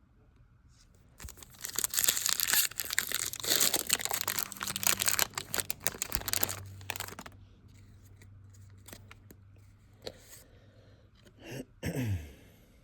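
Foil wrapper of a Pokémon booster pack being torn open and crinkled for several seconds, followed by a few light clicks and rustles of handling the pack and its cards.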